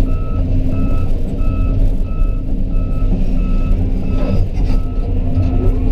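Heavy-equipment travel/backup alarm beeping evenly, about three beeps every two seconds, over a loud, steady running diesel engine of a tracked excavator.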